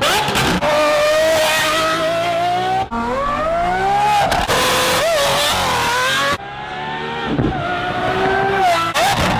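Lamborghini Aventador SVJ's naturally aspirated V12 accelerating hard, its pitch climbing through the gears with upshifts about 3 and 6.5 seconds in. Short rev blips near the end.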